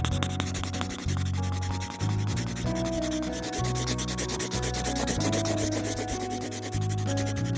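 Felt-tip marker rubbing on paper in rapid back-and-forth colouring strokes, over background music with low held notes that change every second or so.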